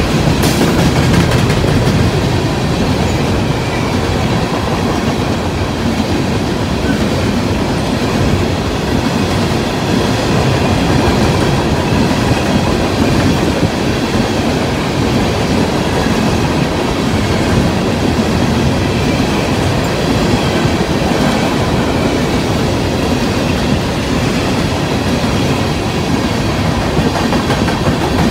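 Loaded coal cars of a long freight train rolling past close by: a steady, loud rumble and clatter of steel wheels over the rail joints, with a faint, steady high-pitched ring running beneath it.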